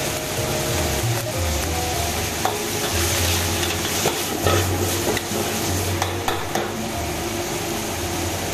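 Fried rice sizzling in a hot wok just after a splash of Chinese wine, tossed and stirred with a metal ladle that clacks and scrapes against the wok now and then.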